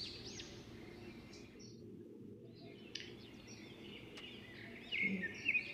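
A small bird chirping over and over, quick rising-and-falling chirps about three a second at first, then a steadier trilling phrase in the second half. A couple of faint knocks from a knife chopping green onions on a stone countertop come through underneath.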